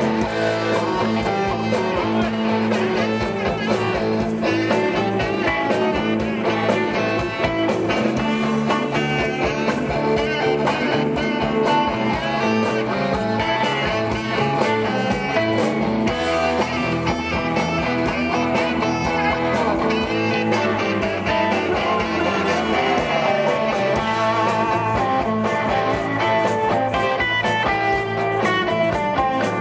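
Live blues-rock band playing an instrumental passage: electric guitar and saxophone over drums, bass and congas.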